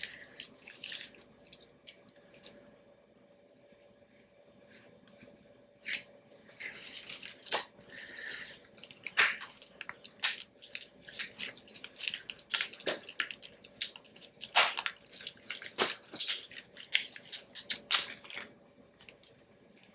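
Shipping packaging being cut and pulled open by hand with a knife: irregular crinkling, rustling and sharp little clicks. It is mostly quiet for the first few seconds, then busy.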